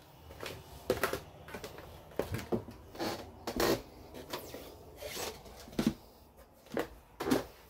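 Handling noise from a handheld camera on the move: irregular knocks, clicks and rustles, a few each second, the loudest about a second in, three and a half seconds in and seven seconds in.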